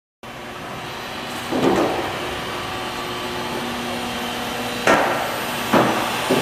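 Steady machine-shop hum with a few faint steady tones, broken by four sharp knocks: one about a second and a half in, three more close together near the end.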